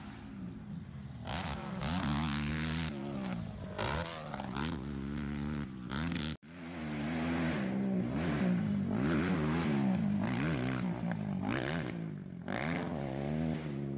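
Quad ATV engines revving hard, their pitch rising and falling with the throttle. The sound breaks off suddenly about six seconds in and a second engine picks up.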